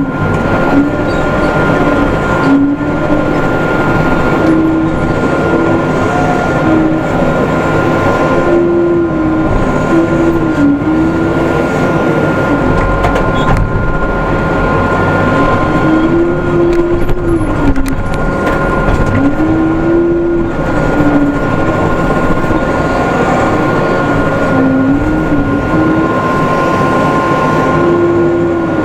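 Case 580M backhoe loader's diesel engine running hard under load, its note sagging and recovering several times as the bucket scrapes dry, hard ground, over a steady high whine.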